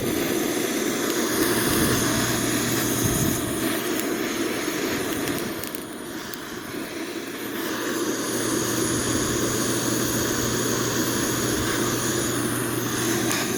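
Gas torch flame roaring steadily, easing off about six seconds in and building back up around eight seconds.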